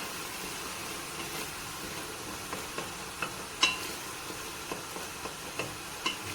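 Onion, tomato concentrate and spices frying in oil in a pot, a steady sizzle as they are stirred, with a spoon knocking against the pot several times.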